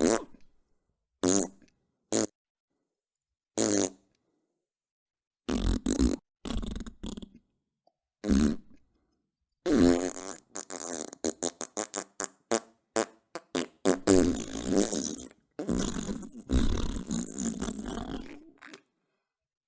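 A string of fart sound effects: a few short, separate farts with silences between them, then from about ten seconds in a long run of many rapid farts following close on one another.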